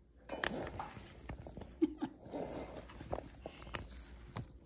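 Chopped potatoes and vegetables being mixed in a stainless steel bowl: irregular wet squishing with soft clicks.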